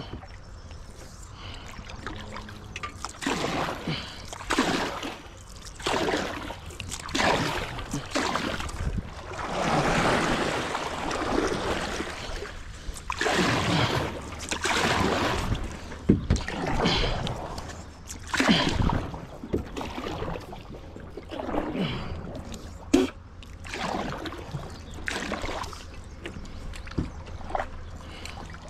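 Paddle strokes pulling through river water, a splashing rush about every second or so, with a single sharp knock about two-thirds of the way through.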